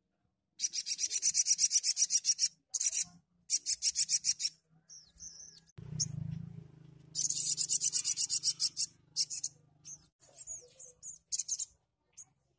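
Sunbird (sogok ontong) singing in rapid, buzzy, rattling trills delivered in repeated bursts of one to two seconds with short pauses: the fast 'tembakan' song of a bird in full song. A brief low rumble about six seconds in.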